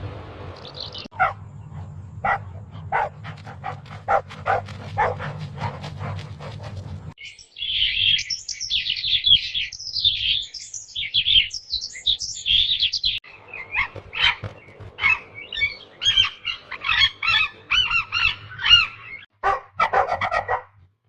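Cartoon sound effects: a series of short knocks over a low hum, then birds chirping and squawking busily for most of the rest, with a few more short knocks near the end.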